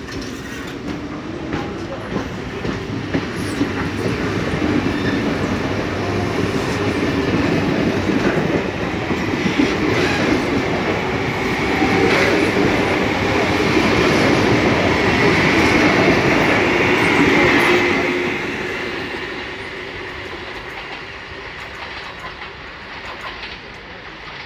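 Toshiba electric multiple-unit trains passing each other, wheels clattering over the rail joints with a steady whine. The sound builds, is loudest through the middle, and fades away over the last few seconds.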